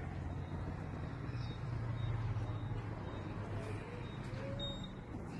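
Low steady hum of a vehicle engine, heard from inside a car's cabin.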